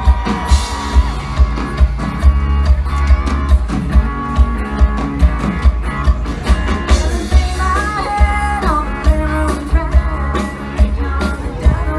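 Live country-rock band playing over an outdoor PA: a steady drum beat of about two hits a second, bass, electric guitar and a singer.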